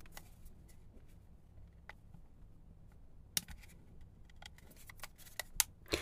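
Faint scattered clicks and taps of a small plastic device casing being handled and a metal spudger being brought against its seam. The sharpest click falls about halfway through, and a quick run of clicks comes near the end.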